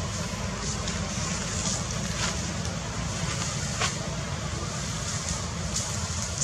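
Steady outdoor background noise with a low rumble, like wind on the microphone or distant traffic, and a few faint clicks.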